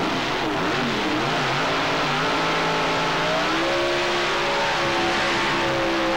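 Pro Mod drag cars' V8 engines revving loudly: blipped up and down at first, then held at a steady pitch, then brought up to a higher steady pitch about three and a half seconds in.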